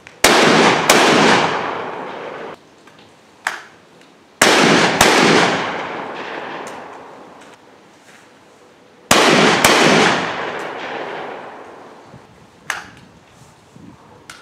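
Stoeger Coach Gun, a 12-gauge side-by-side double-barrel shotgun, firing: three pairs of loud reports about half a second apart, each followed by a long fading tail, with a fainter sharp click between. It is being test-fired after new firing pins were fitted, and the right barrel still gives light primer strikes.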